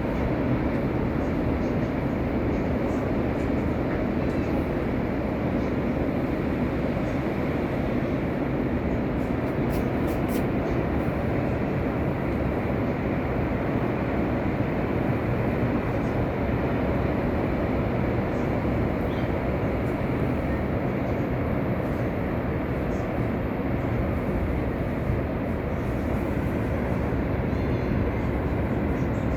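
Rough sea surf: heavy waves making a steady, low rumble with no distinct breaks.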